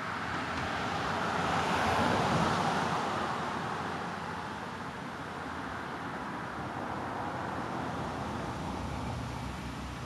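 A car passing by: its road noise swells to a peak about two seconds in and fades away, over a steady background of distant traffic.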